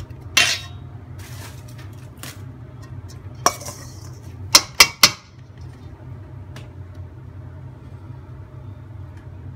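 Spoon stirring a dry mix of diced onion, herbs and spices in a stainless steel bowl, with sharp clinks of the spoon against the bowl. Three quick clinks about five seconds in are the loudest.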